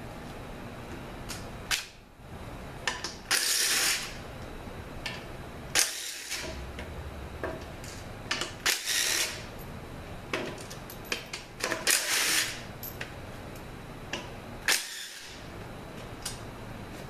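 Cordless impact driver running in about four short bursts of half a second or so, backing out the transmission's bell housing bolts, with sharp metallic clicks and clinks between the runs.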